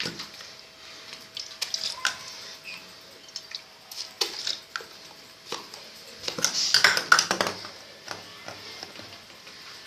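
Scattered clicks, taps and clatter of small objects handled and knocked on a desk by a toddler, with a busier burst of clatter about six and a half seconds in. A faint steady hum runs underneath.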